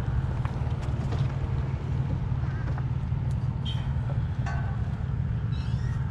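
A steady low engine hum, like an engine idling.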